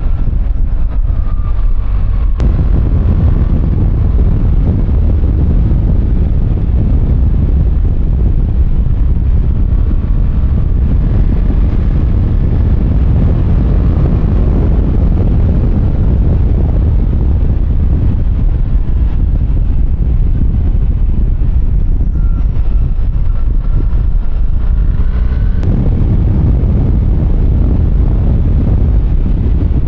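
Wind rumbling over a helmet-mounted microphone while riding a BMW R1300GS, with the motorcycle's boxer-twin engine note faintly rising and falling underneath as it changes speed.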